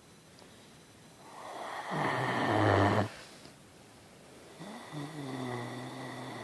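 Great Dane snoring close to the microphone: one loud snore that builds over about two seconds and cuts off suddenly, then a quieter snore with a steady low hum near the end.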